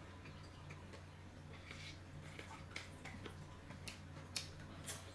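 Faint scattered clicks and taps of tableware during a meal, growing busier from about two seconds in, over a low steady hum.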